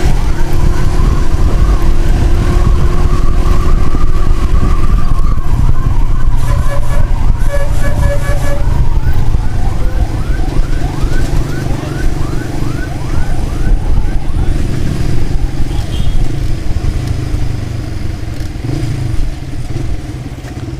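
Motorcycle riding with heavy wind and engine noise while an emergency siren sounds. The siren gives a slow rising and falling wail for the first several seconds, then switches about nine seconds in to a rapid yelp that runs for several seconds before fading.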